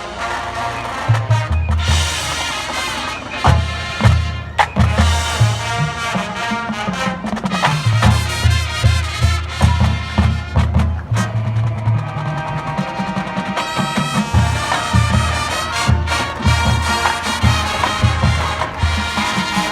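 High school marching band playing: brass over a pounding low bass line and drums, in a steady rhythm.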